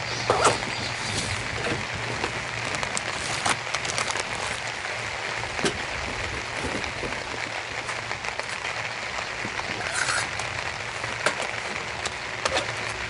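Steady rain falling, with many scattered heavier drops ticking sharply close to the microphone.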